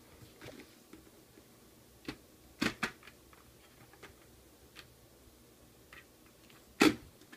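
Sharp plastic clicks and knocks from a full-face motorcycle helmet being handled as its clear visor is raised. There is a pair of clicks a little under three seconds in, and the loudest knock comes near the end.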